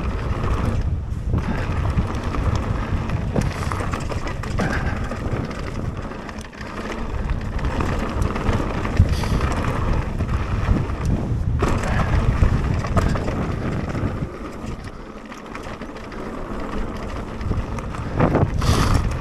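Mountain bike descending a gravel trail at speed: steady rumble and rattle of the tyres and bike over the surface, with wind buffeting the microphone. The rumble eases for a couple of seconds near the end.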